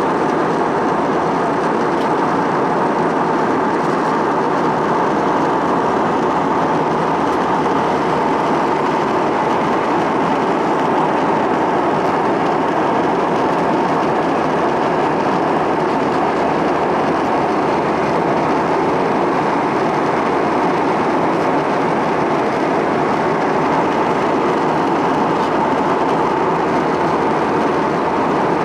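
Jet airliner cabin noise at cruise: a loud, steady rush of engine and airflow noise heard from a window seat by the wing, with a faint steady hum running through it.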